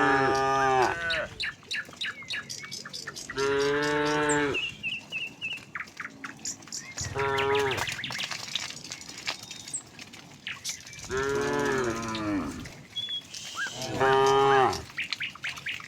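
Cattle mooing, about five long moos in turn, one answering another, with short clicks in the gaps between calls.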